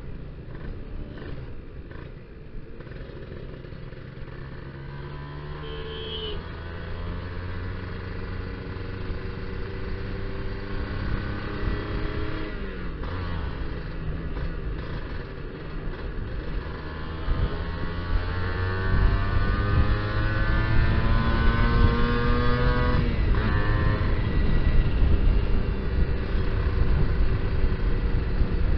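Kawasaki Ninja R's 150 cc two-stroke single-cylinder engine under way on the road, its pitch climbing as it revs and dropping back at a couple of gear changes, running louder in the second half. Wind noise rumbles on the microphone. The stock carburettor is rejetted to a rich setting.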